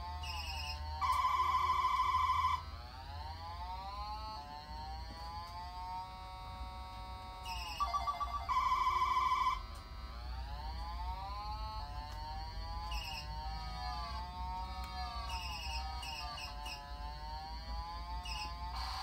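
Background music: an electronic, ringtone-like melody of gliding notes, with a loud buzzing trill about a second in and again about eight seconds in.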